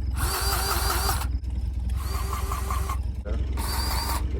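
DeWalt 20V cordless grease gun (DCGG571) running in four short bursts of about a second each, a wobbling whine as it pumps grease into the baler's knotter fittings, over a steady low hum.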